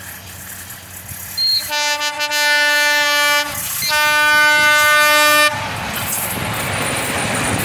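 Diesel locomotive horn sounding two long blasts of about two seconds each as the locomotive approaches. Then the engine and the wheels on the rails grow loud as it passes close by.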